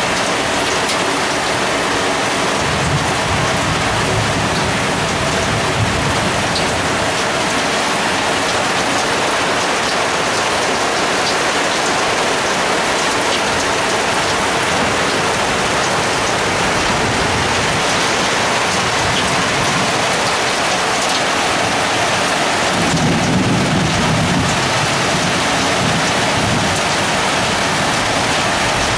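Heavy rain pouring steadily during a thunderstorm, with low rolls of thunder: a weaker one a few seconds in and a stronger one about three quarters of the way through.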